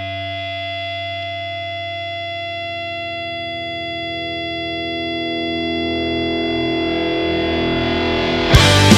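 Rock song intro: a held, distorted electric guitar chord rings and slowly swells, then the full band with drums crashes in near the end.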